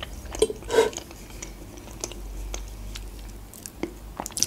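Close-miked chewing of a mouthful of soft chocolate-banana cake, with a wet mouth sound about a second in. A few sharp clicks follow, the last ones near the end as a fork cuts into the cake on the plate.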